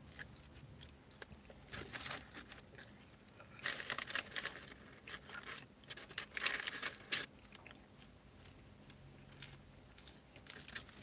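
Paper rustling and crinkling in several short bouts as fingers dig fries out of a paper fast-food bag and fries carton, with soft chewing in between.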